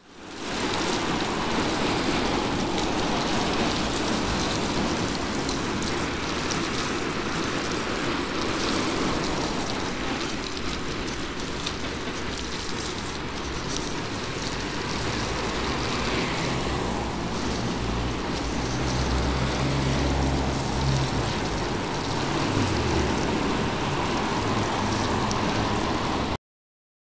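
Steady rushing noise of a bicycle-mounted camera moving along a wet street: wind on the microphone and tyre hiss on the wet road. A motor vehicle's engine hum rises and passes about 18 to 22 seconds in. The sound stops abruptly near the end.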